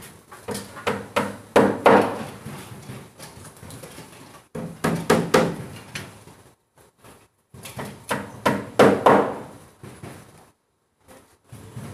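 Hammer blows on a plywood board: several short runs of sharp knocks with pauses between.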